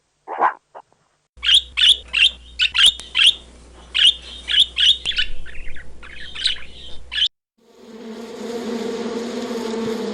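A single short dog bark, then a small bird chirping in quick, sharp, repeated calls for about six seconds. After a brief pause, a steady insect buzz begins near the end.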